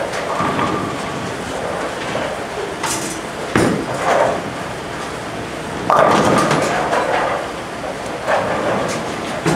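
Bowling ball delivered onto the lane with a sharp knock, rolling, then crashing into the pins about six seconds in. Underneath is a steady rumble of balls rolling and pinsetters on the other lanes.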